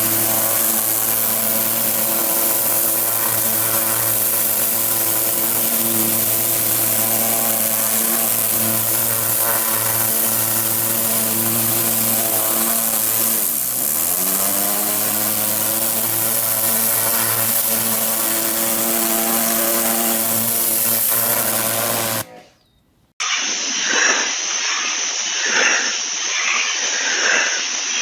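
Pressure washer running steadily, its motor's hum under the hiss of the spray; about halfway through the pitch dips briefly and recovers. It cuts off near the end, and after about a second of silence a duller spraying hiss with an uneven pulse follows.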